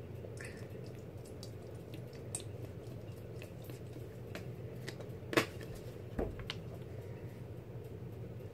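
Light clicks and taps of a plastic cup and bowl being handled while borax solution is added to glue for slime, with one sharper knock about five seconds in and a softer one just after, over a steady low hum.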